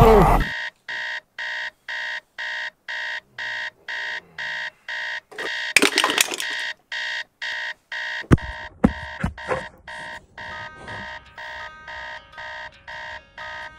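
Smartphone alarm going off in quick repeated electronic beeps, about two or three a second, dropping in level after about ten seconds. About six seconds in, small toiletries clatter onto a wooden floor, followed by a few sharp knocks.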